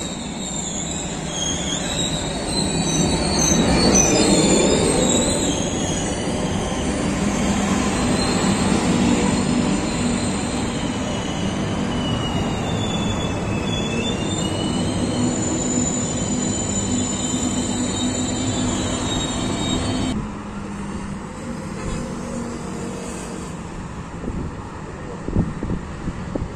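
ONCF Z2M double-deck electric multiple unit running into a station platform, with a steady rumble and thin high-pitched squeals as it slows. About three-quarters of the way through the sound drops suddenly to a quieter, more distant train running past.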